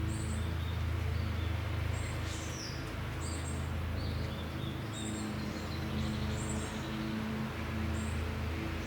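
Small birds chirping in short, high, repeated calls about once a second, over a louder low steady drone.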